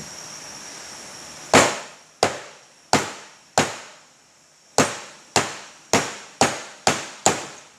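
A steady hiss, then about ten sharp hammer taps, roughly one every half second to second, driving a drive gear into a Honda push mower's plastic rear drive wheel.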